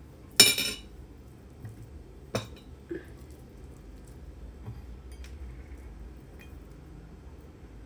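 Kitchen utensils clinking against ceramic dishes: a loud, briefly rattling clink about half a second in, a sharper click about two seconds later and a softer one just after, then a few faint ticks.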